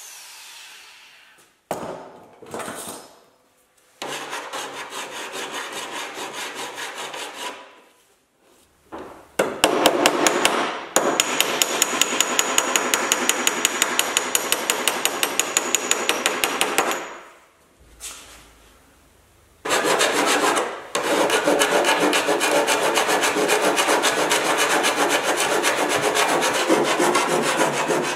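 Hammer and dolly tapping quickly on the welded steel seam of a 1987 Porsche 911's wheel-arch lip. The strikes come in several runs of rapid, even, metallic blows with short pauses between them; the two longest runs fill most of the second half.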